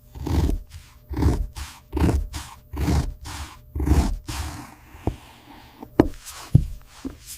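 Leather being cut with a blade in repeated scraping strokes, about one a second, followed near the end by a few sharp clicks.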